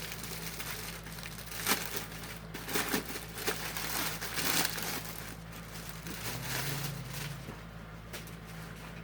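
Plastic packaging crinkling and rustling in irregular bursts as a T-shirt is unwrapped and handled, busiest in the first half, over a steady low hum.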